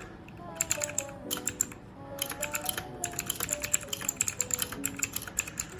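Fast typing on a Leaven K620 keyboard: rapid keystroke clicks in short bursts, near-continuous through the second half, over background music.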